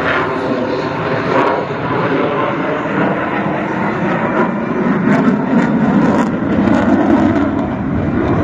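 Jet noise from an F-35 Lightning II's single F135 afterburning turbofan as the fighter flies its display overhead. It is a continuous roar that grows deeper and heavier about halfway through.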